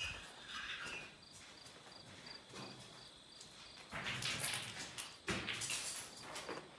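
Footsteps scuffing and crunching on a debris-strewn floor in two bursts, about four and five and a half seconds in. Under them runs a steady high insect drone with quick, faint chirps, about three a second.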